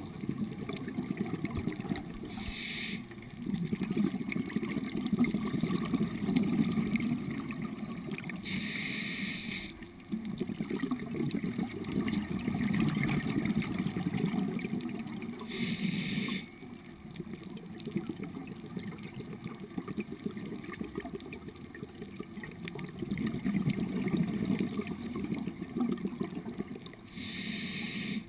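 Scuba diver breathing through a regulator underwater: four hisses of inhaled air, each about a second long and six to seven seconds apart, over a steady low bubbling rumble.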